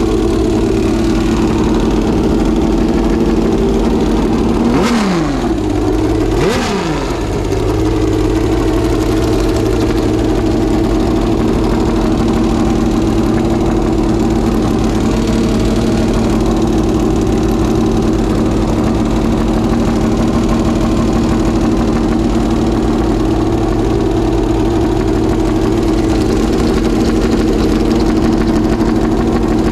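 Homemade Aardema-Braun 60-degree V12 racing engine running on a test stand through open headers, freshly rebuilt with new pistons. Its speed swings down and up twice about five to seven seconds in, then it settles back to a steady idle.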